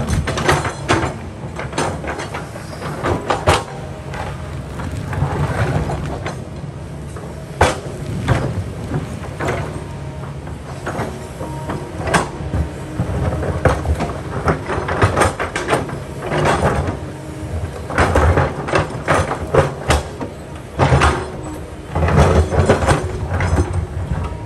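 Kobelco excavator's diesel engine running steadily under load while the bucket scrapes and knocks against rock, giving repeated irregular grinding clunks.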